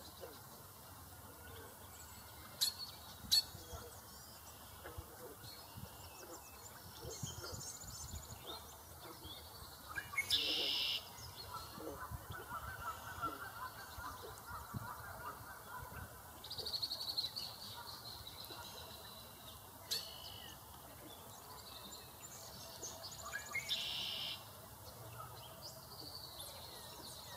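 Mallard ducklings peeping, with two louder bursts of calling, one about ten seconds in and one near the end. A few sharp clicks are heard, two early on and one about twenty seconds in.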